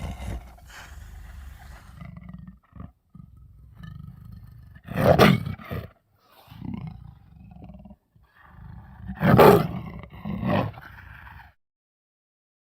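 Edited roar sound effects: loud roars about five seconds in and about nine seconds in, a shorter one just after, separated by stretches of low hum and abrupt cuts.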